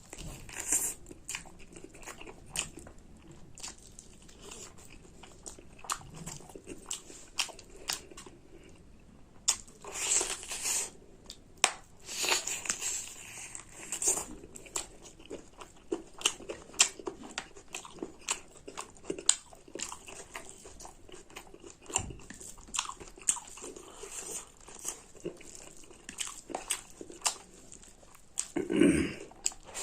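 Close-up eating sounds of a person chewing a meal of pork curry and rice, with many irregular small wet clicks and smacks. A louder, fuller mouth sound comes near the end.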